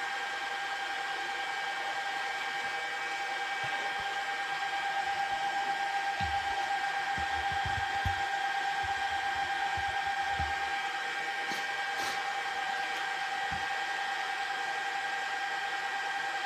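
Brocade SilkWorm 200E Fibre Channel switch's three cooling fans running at full speed with a steady tone during its power-on self-test. A few faint low knocks come about halfway through.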